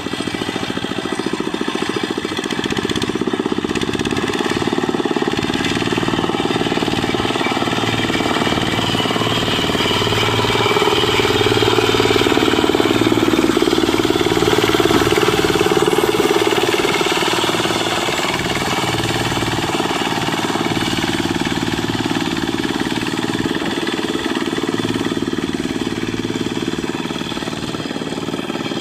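Single-cylinder Dongfeng diesel engine on a Quick Impala two-wheel hand tractor, running steadily with a fast, even chugging beat. It grows louder for several seconds around the middle, then settles back.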